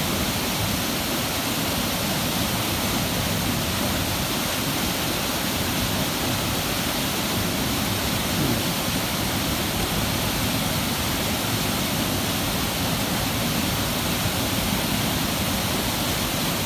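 Waterfall and river water rushing in a steady, even roar of noise.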